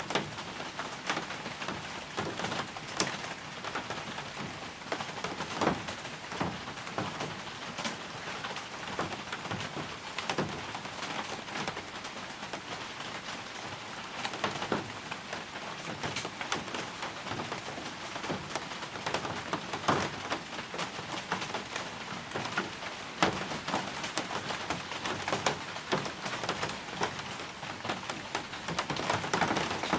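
Steady rain falling on a balcony, with scattered sharp drops striking close by at irregular moments.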